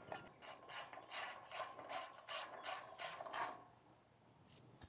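A screw being turned in to fasten the blue end cover back onto a Westinghouse portable generator. There are about nine short scraping strokes, roughly three a second, which stop about three and a half seconds in.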